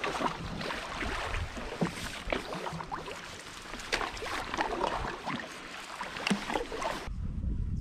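Canoe paddle strokes: the paddle dips and pulls through the water with splashes and drips, and water slaps at the hull. Near the end it cuts abruptly to a low wind rumble on the microphone.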